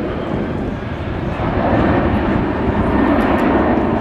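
Airbus A380 in flight: the steady jet noise of its four turbofan engines, growing louder from about halfway through.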